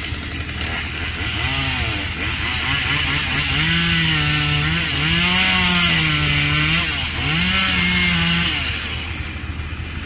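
A chainsaw running up in a tree, its pitch rising and falling as it cuts, starting about a second and a half in and stopping near the end. A truck engine hums steadily and low beneath it.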